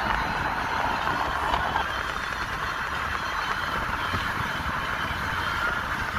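A car driving at speed on an open road: steady tyre and wind noise.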